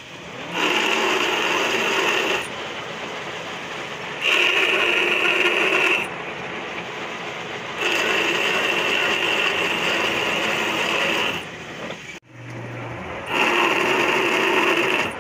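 A metal lathe cutting a screw thread into a metal shaft with a single-point tool. The loud, high-pitched cutting noise comes in stretches of a few seconds, alternating with quieter running. The sound breaks off abruptly about twelve seconds in, with a brief low hum before the cutting noise returns.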